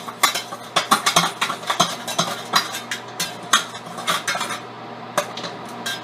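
Popcorn and loose kernels rattling and clattering against the metal of a popcorn machine as the rest is shaken out, many sharp irregular clicks that thin out near the end.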